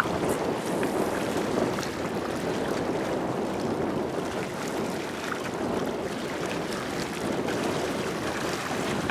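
Choppy sea water washing and lapping steadily, with some wind.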